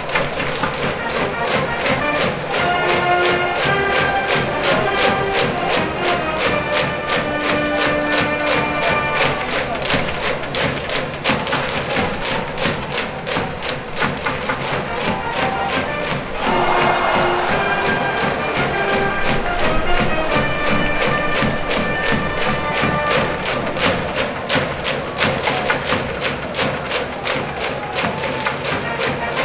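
High-school brass band cheering music from the stands: brass playing a repeating melody over a fast, steady drumbeat.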